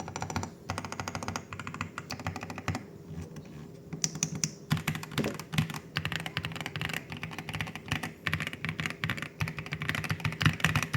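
Typing on a Royal Kludge RK R87 Pro mechanical keyboard fitted with Creamy switches: a fast, continuous run of keystrokes with a few brief pauses.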